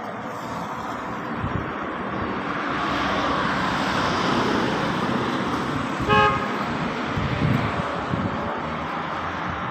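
Street traffic going by, the noise swelling over the first few seconds and easing off, with one short car horn toot about six seconds in.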